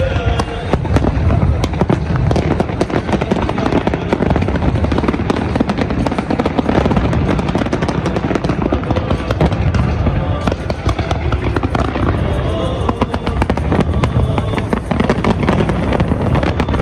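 Fireworks going off in a dense, unbroken barrage of cracks and low booms.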